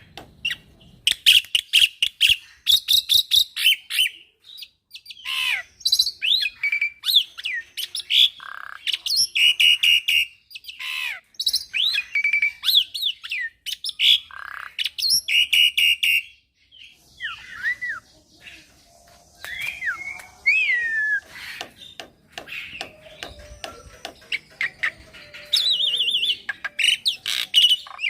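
Young black-winged myna (jalak putih) singing a busy, varied song full of mimicked fills: rapid clicking rattles, squawks and short sliding whistles, with a brief lull about two-thirds of the way through.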